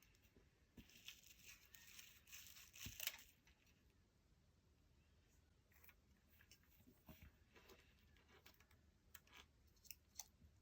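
Faint handling sounds of small iPod nano parts: a tearing, crinkling rustle from about one to three seconds in, then a few scattered light clicks.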